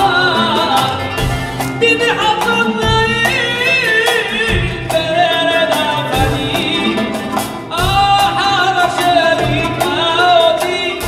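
Live Andalusian music: a male voice sings a wavering, ornamented melody over an ensemble of ouds, violins, double bass and drums, with regular drum beats underneath.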